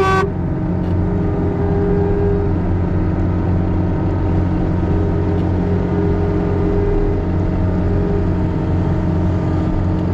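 Farm vehicle's engine running steadily, heard from the driver's seat, with a short horn blast ending right at the start.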